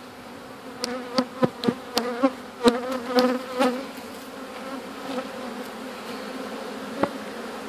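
A swarm of honeybees buzzing steadily, with a run of sharp knocks in the first four seconds as the bees are jarred loose, the buzzing swelling among them, and a single knock about seven seconds in. The bees' reaction to the jarring is a test of their temper, and it is mild.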